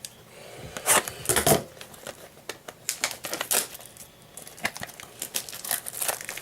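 Trading cards and their plastic wrapping being handled: crinkling and rustling with irregular sharp clicks and taps, a cluster of louder ones about a second in.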